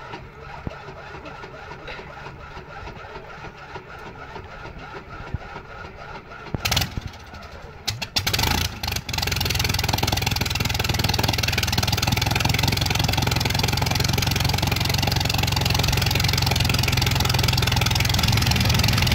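Light biplane's piston engine being started. A low steady hum for the first six seconds, then a few coughs and pops, and about nine seconds in the engine catches and runs steadily with its propeller turning.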